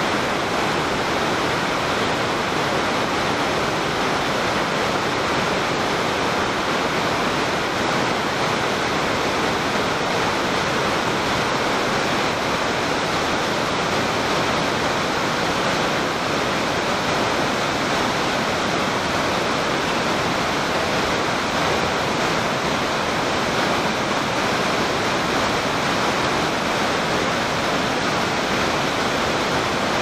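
Sogi Falls, a broad waterfall and rapids on a wide river, with white water pouring over rock ledges in a steady, unbroken rush.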